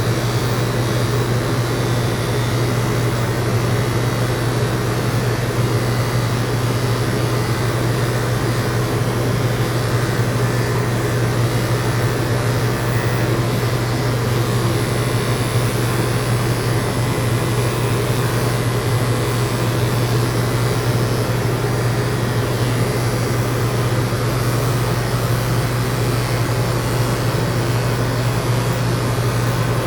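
Electric dog grooming clippers running with a steady, unchanging hum.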